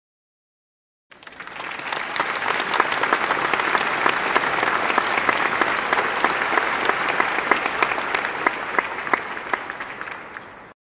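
Applause, many hands clapping, starting suddenly about a second in, building quickly, then stopping abruptly just before the end.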